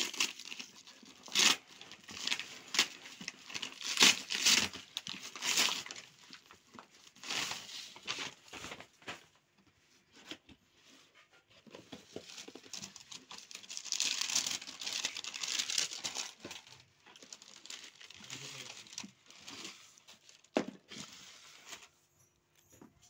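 A brown paper courier mailer being torn open by hand in a series of loud rips, then crinkling paper and tissue wrapping rustled as a cardboard shoebox is opened, with a single knock near the end.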